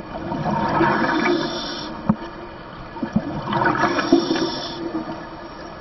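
Underwater bubbling of a scuba diver's exhaled air, in two surges about three seconds apart, over a faint steady hum.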